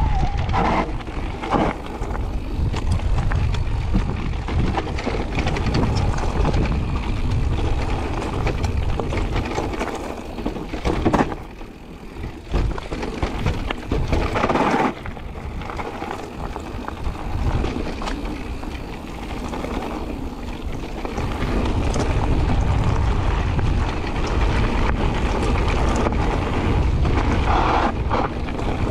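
Wind buffeting the microphone and mountain-bike tyres rolling fast over a gravel and dirt trail, with frequent knocks and rattles as the bike hits bumps. It eases briefly a little under halfway through, then picks up again.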